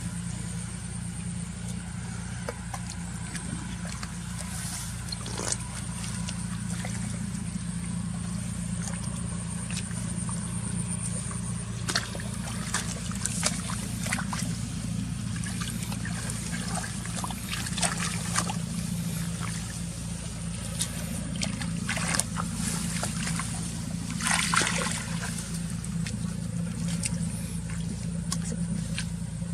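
Water splashing and trickling in irregular bursts, clustered in the second half, over a steady low motor hum.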